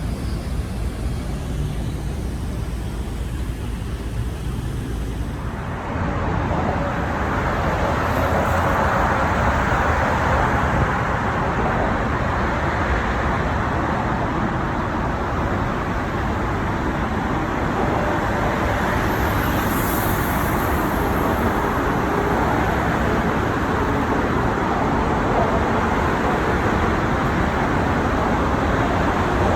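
City street traffic noise: a steady low rumble with a broad wash of road noise that grows louder about six seconds in and then holds steady.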